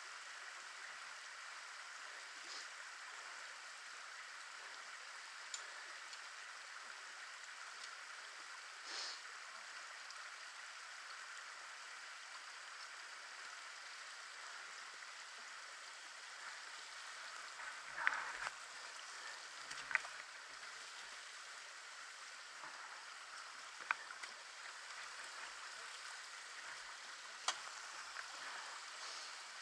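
Water trickling steadily over the rock bed of a wet gully track, with a few faint knocks in the second half.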